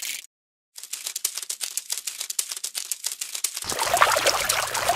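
A crinkling, crackling sound effect made of rapid, dense clicks, which starts after a short gap. A little before the end it grows louder and fuller, with a low hum underneath.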